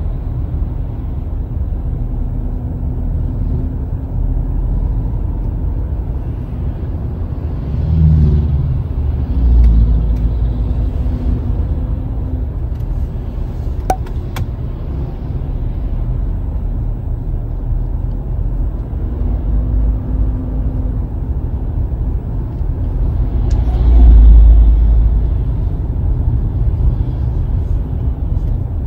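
Steady low rumble of a car's engine and tyres at road speed, heard from inside the cabin, swelling louder a few times (around eight to ten seconds in and again near twenty-four seconds). A short click about fourteen seconds in.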